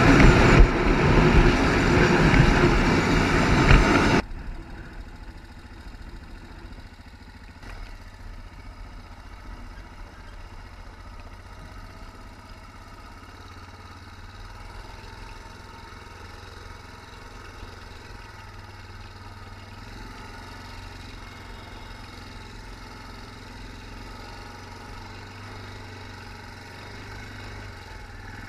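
ATV engine running hard with rushing noise for about four seconds, then the sound drops suddenly to a quiet, steady low idle hum for the rest.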